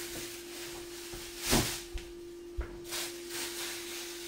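Kitchen tidying out of sight: plastic bags rustling, with a louder rustle about a second and a half in and a couple of soft knocks just after, over a steady low hum.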